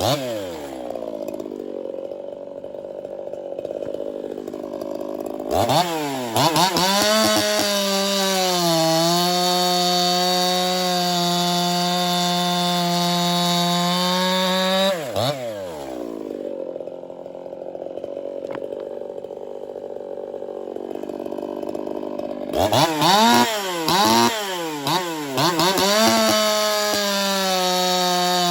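Ported Echo CS-4910 50cc two-stroke chainsaw idling, then run up to full throttle and held there for about nine seconds before dropping back to idle. Near the end it is blipped several times in quick succession and then held at full throttle again.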